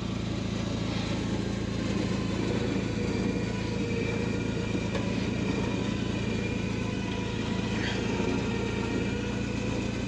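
Tracker 4x4 running steadily during a winch recovery from deep snow: a low even hum with a faint higher whine over it.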